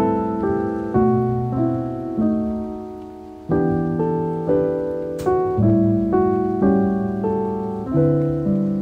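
Soft background piano music: notes and chords struck about every half second, each ringing out and fading, with one longer held chord a little after two seconds in.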